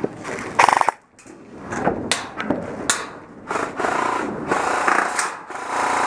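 Airsoft electric guns firing in bursts, the fast buzzing rattle of their gearboxes. A short, loud burst about half a second in, a few sharp clicks, then longer bursts from about three and a half seconds in.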